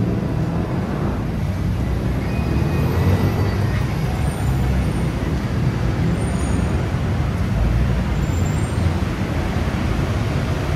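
Busy road traffic: a steady low rumble of passing engines and tyres.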